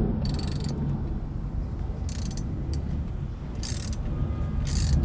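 Four short scraping, ratchet-like bursts from hand-tool work on a car's steering column, over a steady low rumble.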